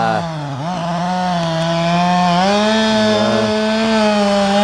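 Chainsaw running at full throttle, cutting into an apple tree's trunk. Its pitch dips sharply about half a second in, recovers, then rises a little about two and a half seconds in and holds steady.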